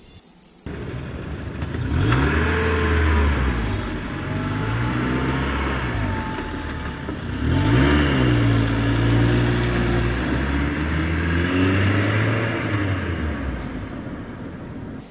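Battery-powered ride-on toy car running, its motor sound starting abruptly and rising and falling in pitch several times as it drives.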